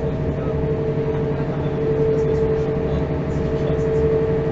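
Mercedes-Benz O405 city bus heard from inside the passenger cabin: the diesel engine runs steadily with a low drone, and a constant high-pitched whine sits over it.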